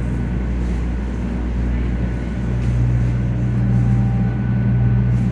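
Steady low rumble and hum of a 500 Series Shinkansen bullet train running, heard from inside the car; the hum grows a little stronger about two and a half seconds in.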